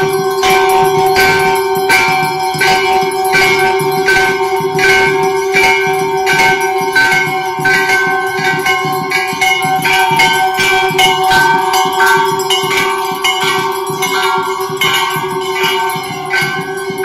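Temple bells rung for aarti, struck over and over at about two strikes a second, over a steady sustained ringing tone.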